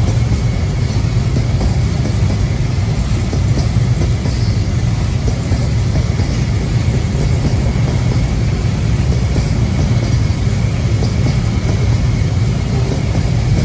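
Coal train rolling past with a steady low rumble; a faint thin high whine comes in about halfway through.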